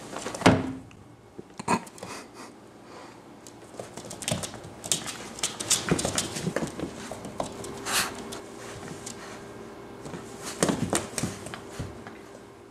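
Yellow Labrador retriever puppy playing with a plush toy on a hardwood floor: scattered clicks, scrabbles and knocks of claws and body on the boards, with a sharper knock about half a second in.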